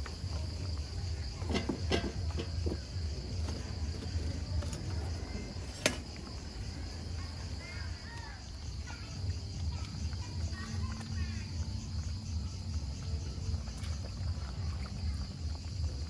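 Crickets chirping in a steady, fast-pulsing trill over a low steady rumble from the wood fire under the cooking pots. There are a few light knocks early on and a single sharp click about six seconds in.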